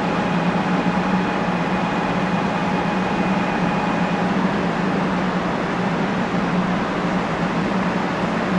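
Shinkansen high-speed train running along the station track, a loud, steady rushing noise. A faint whine fades out about four seconds in.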